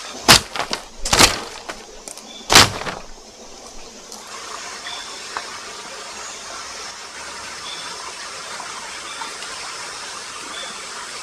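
Three sharp knocks or clatters in the first three seconds, the loudest sounds here. Then the steady rush of a small stream, with a few faint, short, high peeps.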